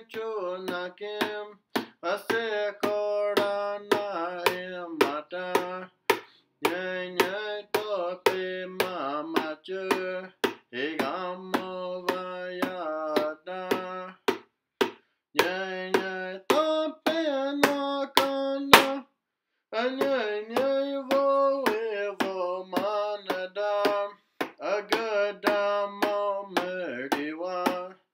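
A single voice singing a social song in its native song language, phrase by phrase, over sharp percussive clicks on a steady beat of about two a second. There is a short break in both just after nineteen seconds in.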